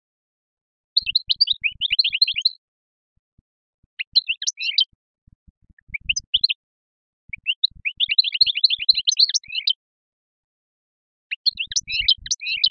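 Songbird singing in five bursts of rapid twittering phrases, the longest and densest about eight seconds in.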